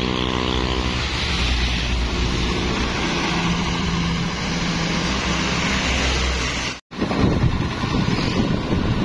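Diesel engine of a bare Hino RK bus chassis running as it drives past. After a sudden cut, wind buffets the microphone over the engine.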